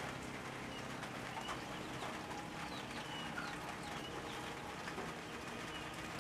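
Scattered short bird chirps and calls over a steady low background hiss and hum.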